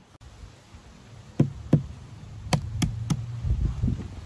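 Five sharp knocks over about two seconds as items are set down on a wooden board and table, with a low buzz beneath them.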